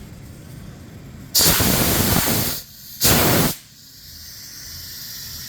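Steam blasting out of a small steam boiler in two loud hissing bursts: the first lasts over a second, the second is about half a second. A fainter steady hiss carries on around them.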